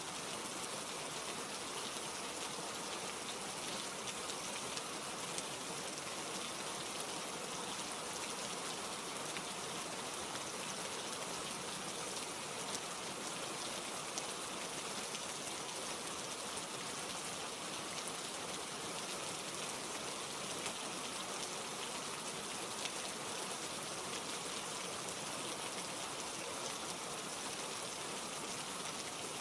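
Steady rain falling, an even hiss with fine crackling drops throughout.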